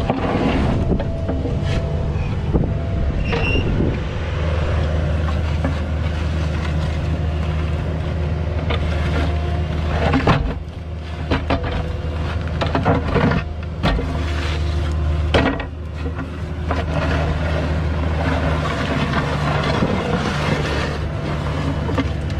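Cat mini excavator's diesel engine running steadily as it digs, with several knocks and scrapes from the bucket working in the dirt.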